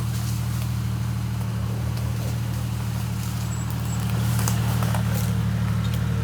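Car engine running with a steady low drone, with a few faint light clicks over it.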